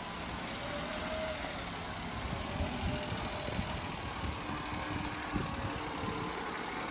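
A 2019 Citroen C3's engine running at idle as the car rolls slowly forward under its own power, with a few faint low knocks.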